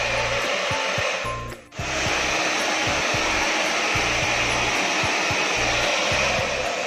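V&G hand-held hair dryer blowing steadily on a wet cat's fur. The sound drops out briefly about a second and a half in, then comes back.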